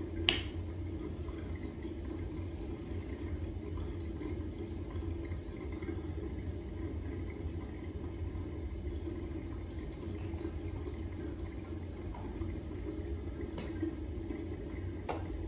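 A steady low hum, with a sharp click just after the start and two fainter clicks near the end.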